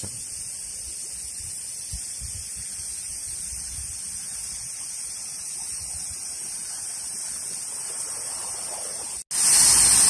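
Steady rushing of a waterfall and its stream. Near the end the sound cuts out for an instant, then comes back much louder for about a second.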